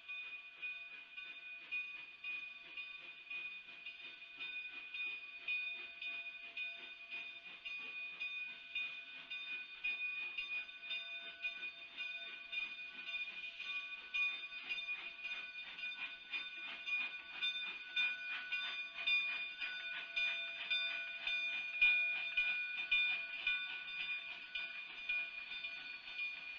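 Cumbres & Toltec K36 No. 487, a 3-foot narrow-gauge 2-8-2 steam locomotive, working its train out of the yard and passing close by, then its coaches rolling past. There are dense, rapid clicks and strokes, getting louder in the second half, over a steady high-pitched whine.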